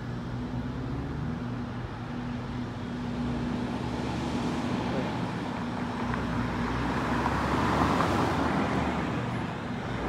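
Road traffic: a car's tyre and engine noise swells as it drives past, loudest about eight seconds in, over a steady low engine hum.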